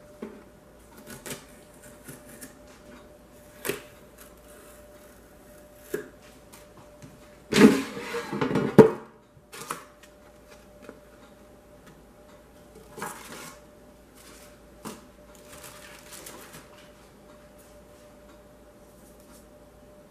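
Unpacking a new Instant air fryer: scattered clicks and light knocks of handling, with the loudest clatter partway through as the basket drawer slides out of the body. Later come short rustles of paper and cardboard packing being lifted out of the basket, over a faint steady hum.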